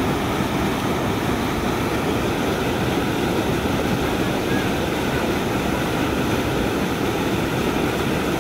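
Floodwater rushing steadily through the openings between concrete sluice pillars, churning into white water.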